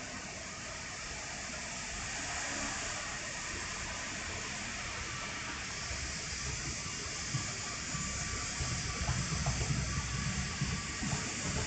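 A Shinkansen train running along the elevated tracks: a steady rushing hiss that grows slowly louder, with a low rumble building and fluttering in the second half.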